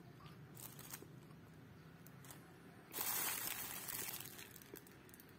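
Thin clear plastic bag crinkling as a hand reaches in and lifts out a bread bun, loudest for about a second starting some three seconds in, with a few lighter rustles before it.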